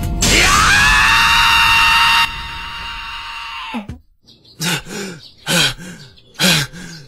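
A loud dramatic sound effect with rising, then held tones that dies away about four seconds in, followed by a young man's voice groaning in his sleep, three short groans about a second apart.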